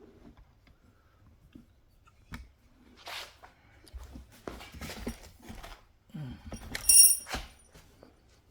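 A camera tripod is knocked over and crashes down with a sharp clatter and a brief metallic ring about seven seconds in. Before it come scattered small knocks and rustling.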